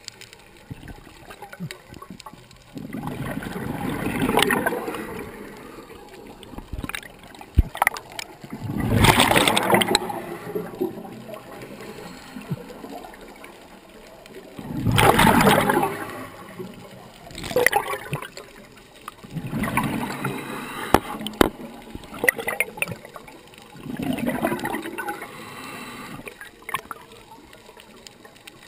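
Scuba regulator breathing underwater: gurgling bursts of exhaled bubbles about every five seconds, with quieter bubbling between breaths.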